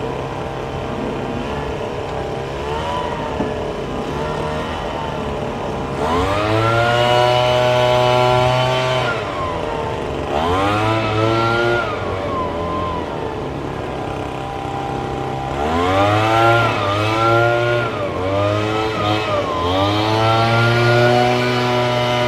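An engine revving up four times, each rev rising in pitch and then falling away, over a steady low engine hum.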